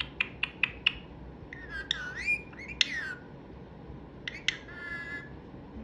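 Pet parrot vocalizing: a quick run of sharp clicks, about five a second, then warbling, gliding whistled calls and squawks, and a few more clicks with a short call near the end.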